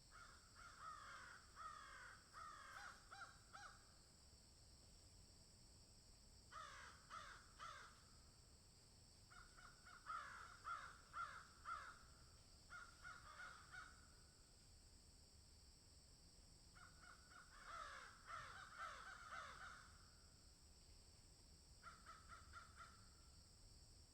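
A bird calling in five bursts of rapid repeated notes, each burst lasting one to four seconds, with pauses between them. A steady high hiss runs underneath.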